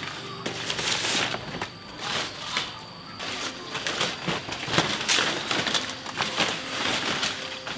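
Dry rice straw rustling and crunching in irregular swishes as it is handled and pressed down into a mushroom bed.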